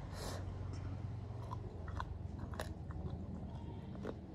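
Close-up mouth sounds of someone chewing and biting cooked mutton goat head, with scattered short wet clicks and crunches over a low steady hum.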